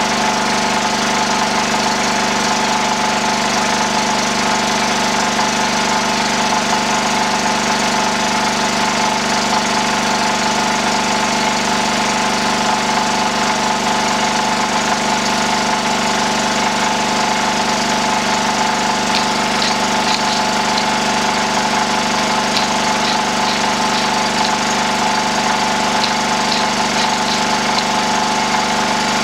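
Whitehead petrol generator's engine running steadily at a constant speed, with a few faint high ticks in the second half.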